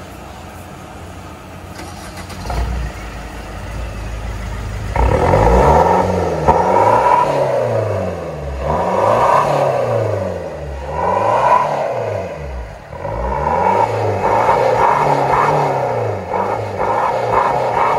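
Maruti Suzuki Baleno's 1.3-litre four-cylinder turbodiesel running through a straight-pipe exhaust with the muffler deleted. It idles with a low rumble, then from about five seconds in it is revved up and down over and over, each rev rising and falling in pitch.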